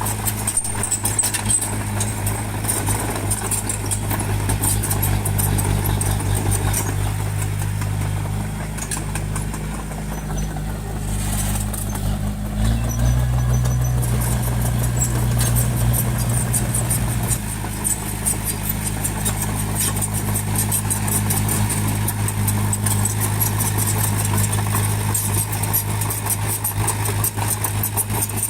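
Bulldozer's diesel engine running steadily under work, with a fast clatter over it; about halfway through the engine note rises and pulls harder for about five seconds, then drops back.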